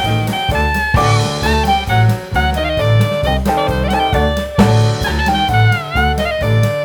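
Background jazz music: a bending horn melody, likely saxophone, over a steady bass line of about two notes a second, with drums.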